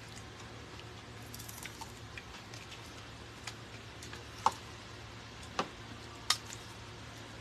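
Quiet eating at a table: scattered sharp clicks of a fork and a bowl lid against ceramic bowls, the three loudest in the second half.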